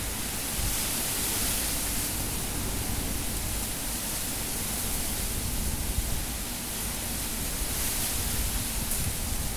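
Cyclone-force wind rushing steadily, with a low rumble beneath, swelling in gusts about a second in and again near the end.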